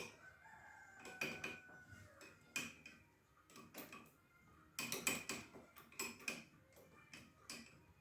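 Metal tools and small scooter parts clinking and knocking at irregular intervals, loudest in a quick cluster about five seconds in.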